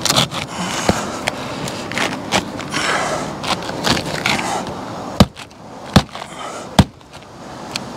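Granule-surfaced asphalt shingles scraping and rustling against each other and the roof as they are slid and pressed into place by hand. Near the end come three sharp knocks, less than a second apart.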